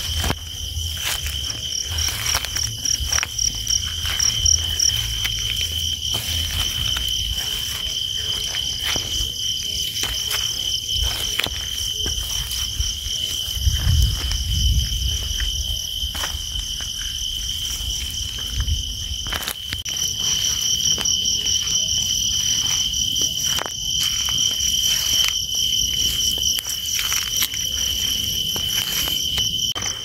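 Crickets and other insects chirring steadily in a high tone, with a pulsing trill above it, and scattered short clicks and rustles.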